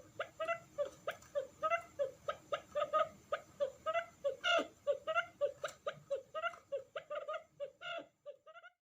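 Quail giving a lure call: a rapid series of short, pitched notes, about three or four a second, used to attract wild quail. It stops suddenly near the end.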